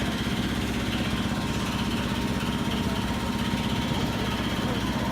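Sky Cabin observation-tower ride's drive machinery running steadily as the rotating cabin climbs the tower: an even motor drone with a faint steady whine above it.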